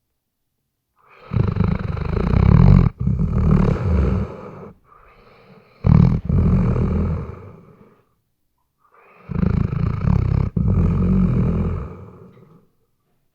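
Weimaraner snoring in its sleep: three long, rattling snoring breaths about four seconds apart, with short silences between.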